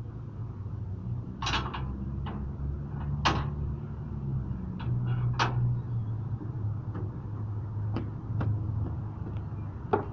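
Three sharp metal knocks, about two seconds apart, with fainter ticks after them, from the hand-brake wheel and steel rear platform of a railway caboose as a child handles the wheel. A steady low rumble runs underneath.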